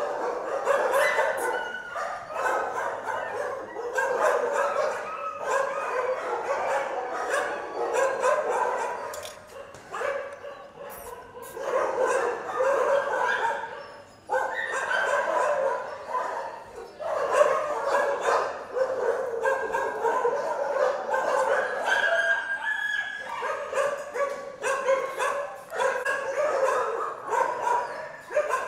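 Shelter dogs in kennels barking and yelping over one another, an almost unbroken din with a couple of brief lulls.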